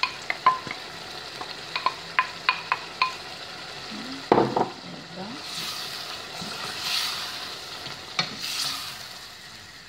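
Wooden spoon stirring meatballs and freshly added chopped tomatoes in a stainless steel pot over a sizzle of frying. There are several sharp taps against the pot in the first three seconds and a louder clatter about four seconds in.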